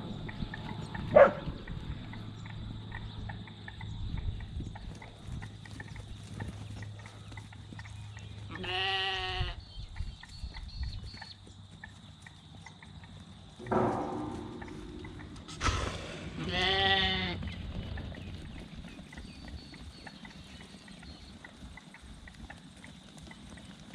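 Sheep bleating in the yards: two long calls, one about nine seconds in and one near seventeen seconds. A loud sharp knock comes about a second in, and two more near the middle.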